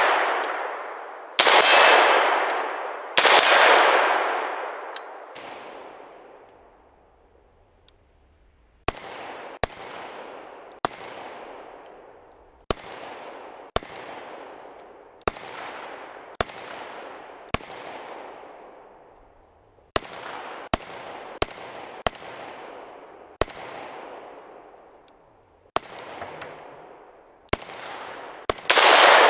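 Arsenal SLR-104FR semi-automatic rifle in 5.45x39mm firing single shots. Three loud shots, each with a long rolling echo, come in the first four seconds. After a pause, a steady string of about eighteen quieter shots follows at roughly one a second, and one more loud shot comes at the very end.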